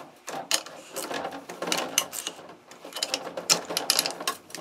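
Hand ratchet with a half-inch socket clicking in quick runs, with short pauses, as the bolts of a 47RE/48RE transmission front pump are run down snug.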